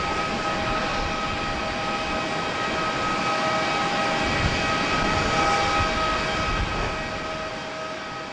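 Airbus A330-300 jet engines running: a steady rush with a few steady whining tones over it, fading toward the end.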